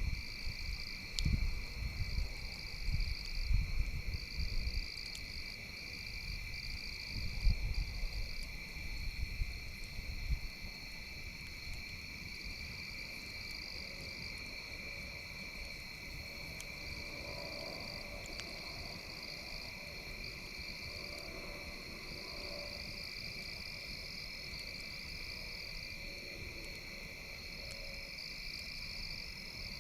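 Night insects chirping steadily in two high tones, one of them pulsing, with frogs calling faintly in the middle stretch. A low rumbling comes and goes through the first ten seconds, then stops.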